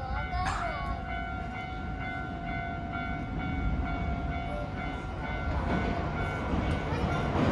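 Japanese level-crossing warning bell on the Nankai Railway ringing its steady, repeating electronic ding-ding. A train approaches, its rumble growing louder over the last couple of seconds.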